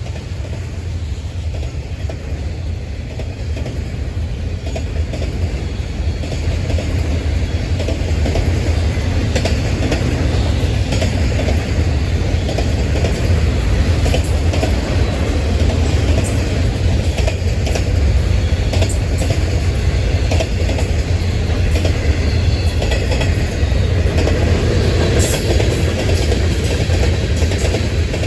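Florida East Coast Railway freight train rolling past: a steady rumble, with wheels clicking over the rail joints more often in the second half as the cars go by.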